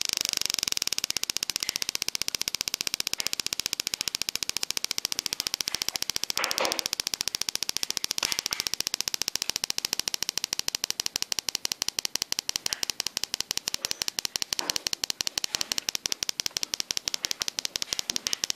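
Small speaker driven by an NE555 timer oscillator on a breadboard, giving a rapid, even train of clicks. At the start the clicks run together into a fast buzz, then slow within about a second into separate ticks as the trimmer potentiometer setting the rate is turned. There are brief handling rustles about six and a half and eight seconds in.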